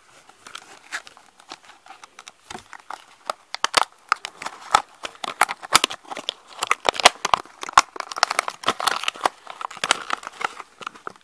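Toy packaging being opened by hand: a dense run of crinkling, crackling and tearing that grows busier about four seconds in.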